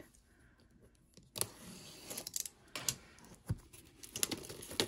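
Plastic shrink wrap on a boxed music album being peeled off and handled, starting about a second and a half in, with crinkling and scattered sharp clicks and taps of the album against a desk.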